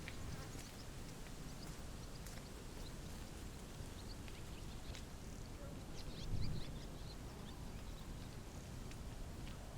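Wind blowing over a buckwheat field with many short, high bird chirps scattered through it. A low gust swells briefly about six and a half seconds in.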